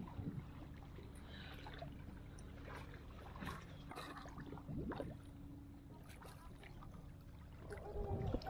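Seawater sloshing and lapping over a submerged pontoon platform, with scattered small splashes over a faint steady low hum.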